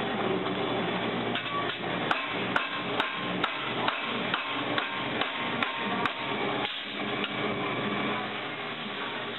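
Hammer striking a tool held against the edge of a metal propeller blade as the bent edge is worked back into shape. Sharp, even blows come about two a second, starting about a second and a half in and stopping about two seconds before the end.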